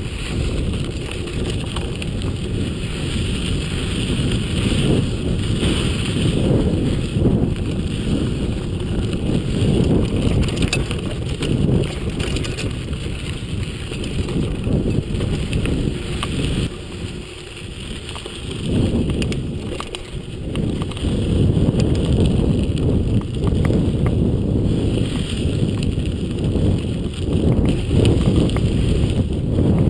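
Giant XTC 29er mountain bike rolling along a dirt and gravel singletrack: tyres rumbling and the bike rattling over rocks, mixed with wind rushing over the microphone. The noise eases briefly a little past halfway, then picks up again.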